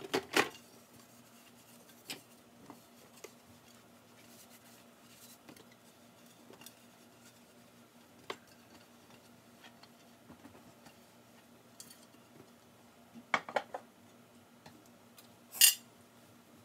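Scattered light clinks and knocks of dishes and kitchen items being handled, with a quick run of knocks a little before the end and one short, louder scraping noise just after it.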